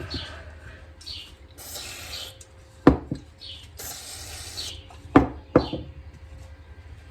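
Hands working on small engine parts: three sharp knocks of hard parts set down or tapped, between two short bursts of hiss, with faint bird chirps behind.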